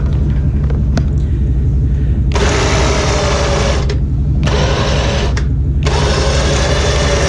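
Electric winch motor whirring under load in three runs, starting about two seconds in and briefly cutting off twice, its pitch sagging slightly as it pulls, over a steady low engine rumble from an idling vehicle.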